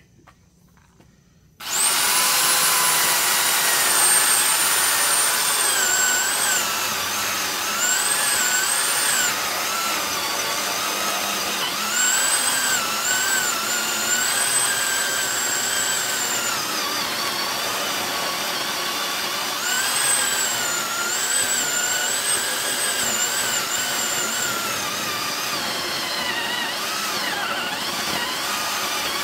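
Small electric mini chainsaw starting about a second and a half in and running steadily while cutting into a thick log. Its high whine dips and recovers again and again as the chain loads up in the wood.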